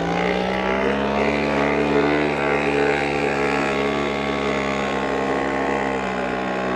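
Lohmann 18cc variable-compression two-stroke diesel moped engine running steadily while driving the bicycle along. It holds an even buzzing note.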